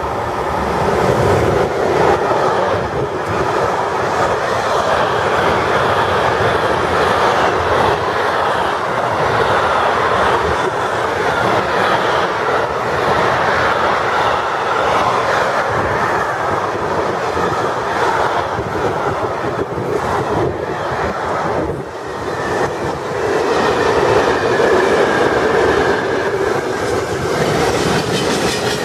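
Freight train passing at close range, its wagons clattering steadily over the rail joints.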